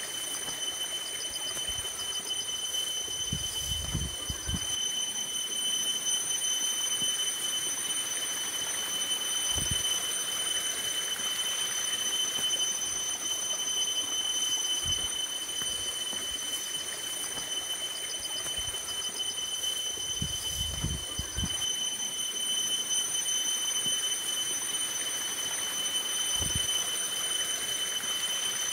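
A steady high-pitched insect whine holds throughout over a faint hiss, with a few short chirps in small runs. Two brief low rumbles come about four seconds in and about twenty seconds in.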